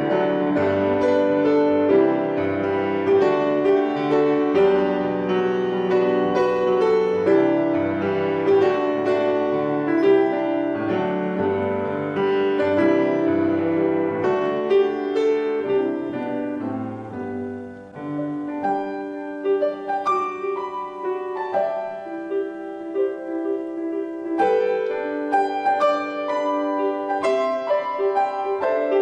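Grand piano played solo, a flowing piece of chords and melody. The playing softens for a moment about 18 seconds in, then goes on with separately struck chords.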